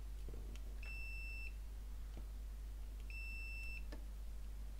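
Multimeter continuity tester beeping twice, each a steady high beep of under a second, as the probes touch an IC pad and its through-hole: the beep signals that the trace between them is connected. Faint clicks of the probe tips on the board.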